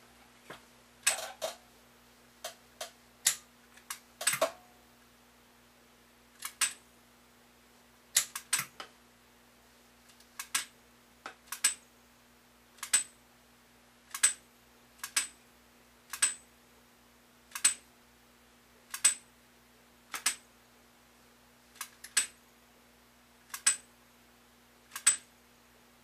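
Zenith Space Command mechanical ultrasonic remote control clicked again and again, its hammer striking a tuned aluminum rod to send the 38.75 kHz mute tone while the receiver's coil is peaked: sharp clicks with a brief high ring, about one every second or so, over a faint steady hum.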